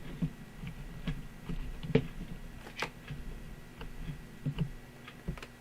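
Irregular light clicks and taps as an old portable radio with its back open is handled and moved around, with a faint steady hum underneath.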